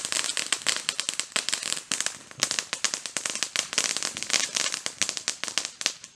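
Consumer firework going off in a dense, rapid crackle of many small sharp pops, thinning briefly partway through and cutting off at the end.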